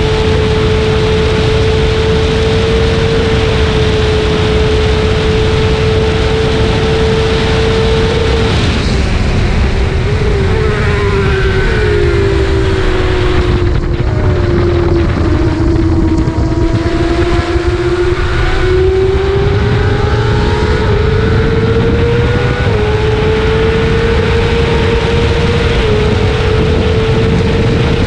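Sportbike engine running at sustained high revs under a heavy rush of wind and road noise, heard on board at racing speed. About halfway through the engine note sinks in pitch for several seconds and then climbs back up as the bike picks up speed again.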